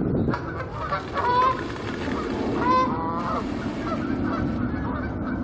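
Canada geese honking: a run of calls about a second in and another cluster near three seconds, over steady low background noise.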